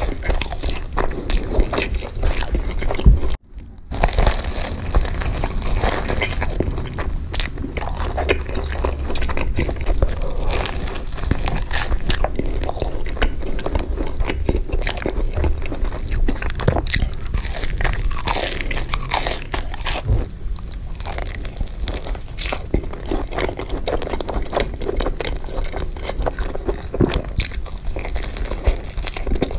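Loud, close crunching and chewing as a person bites into and eats crispy fried food dipped in cheese sauce, with a brief break about three seconds in.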